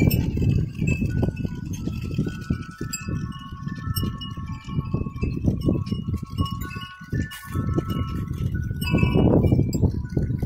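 Tubular metal wind chime ringing, several long bell-like tones struck one after another and overlapping as they fade. A rough, uneven low rumble runs beneath and grows louder near the end.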